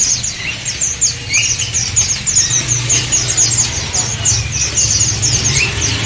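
Several caged songbirds chirping: a quick, unbroken stream of short, high chirps with a few lower notes, over a steady low hum.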